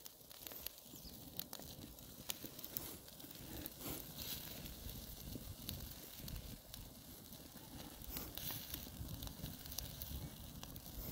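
Wood fire crackling in a steel fire ring, with faint scattered pops and snaps.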